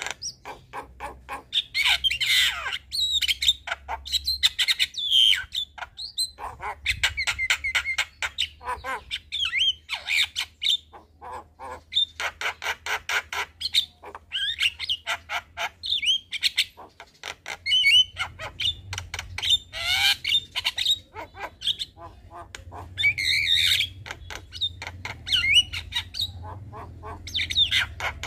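Javan myna chattering: fast runs of harsh squawks and clicks mixed with short, bending whistles, with no pause.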